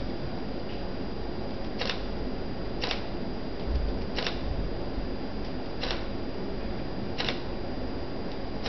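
Digital SLR autofocus driving the lens: five short whirring bursts, about one every second to second and a half, as the camera refocuses again and again.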